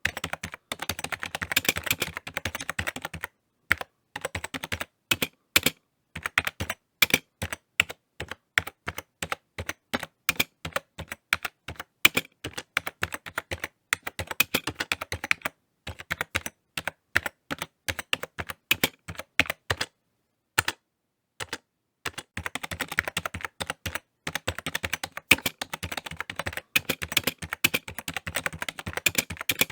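Typing on a computer keyboard. Runs of rapid keystrokes alternate with slower, separate key presses, with a silent pause of about two seconds a little past the middle.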